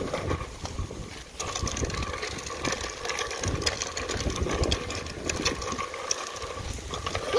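Wind buffeting the microphone in gusts, over a steady machine hum that comes in about a second and a half in.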